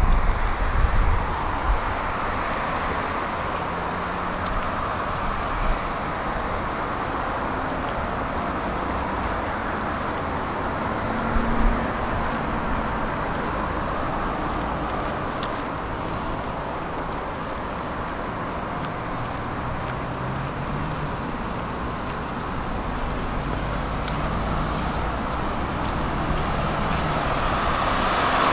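Steady road traffic noise, with a vehicle drawing closer and growing louder near the end.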